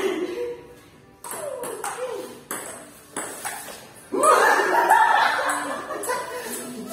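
Table tennis rally: a celluloid-type ping-pong ball clicking back and forth off paddles and the tabletop, several quick hits between about one and four seconds in. About four seconds in, players' voices break out loudly.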